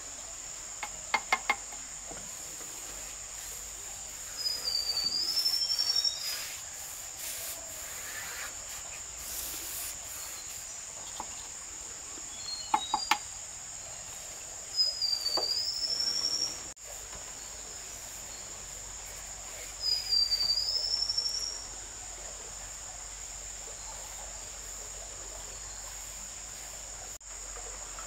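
Insects droning steadily at a high pitch. A louder rising call, about a second and a half long, comes three times over it, and short clusters of sharp clicks sound twice.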